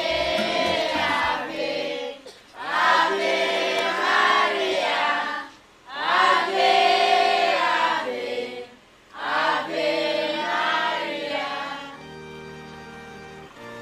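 A group of voices singing a hymn together in four long phrases, with short breaks between them. About twelve seconds in, the singing gives way to quieter music of held notes.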